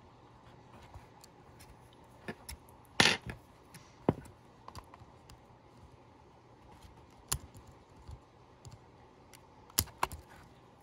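Scattered small clicks and taps of metal tweezers against the plastic chassis and bogie parts of an HO-scale model locomotive as the bogie's plastic centre pin is squeezed to free it. The sharpest cluster of clicks comes about three seconds in.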